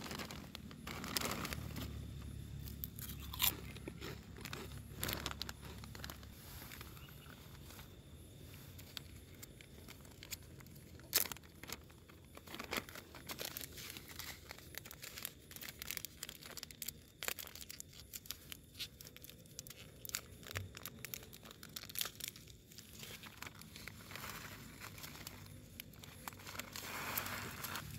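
Plastic bags and a foil food sachet being handled, giving scattered crinkles and crackles.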